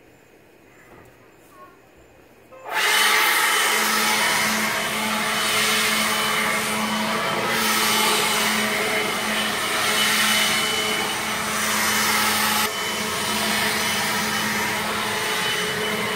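RYOBI One+ 18-volt cordless jet fan blower switched on a few seconds in and running steadily: a loud rush of air over a steady motor hum and whine.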